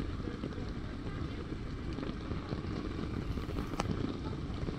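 Steady wash of heavy rain on a city street, mixed with a low rumble of traffic and wind on the microphone; a single short click near the end.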